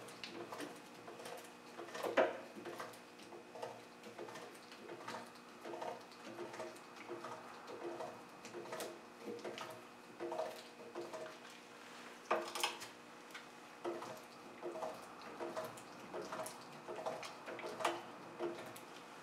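Strut spring compressor machine being worked down onto a front strut's coil spring to take the spring's pressure off the top mount, with light metallic clicks and ticks about once a second and louder knocks about two seconds in and near the middle, over a faint steady hum.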